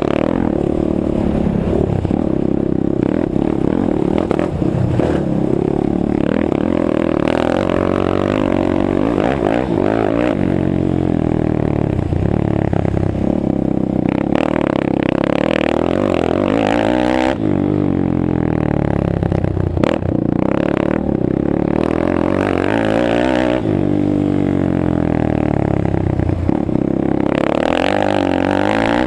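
Suzuki LT-R450 quad's single-cylinder four-stroke engine heard close up on board, revving up and down over and over as the rider accelerates, shifts and backs off for corners, with a few sharp knocks along the way.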